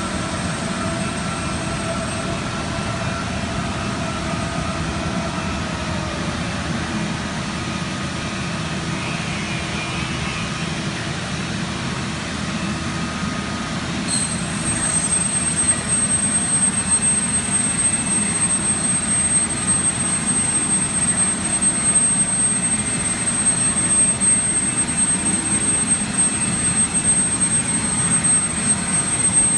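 Uniteam 5-axis machining centre running with a steady mechanical hum. About halfway through a high steady whine comes in and the machine gets louder.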